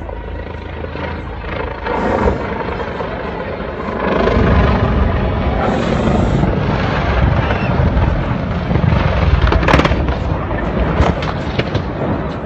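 An aircraft crashing into a rocky mountainside and exploding: a heavy low rumble builds about four seconds in and runs on for several seconds, with one sharp crack near the end of it.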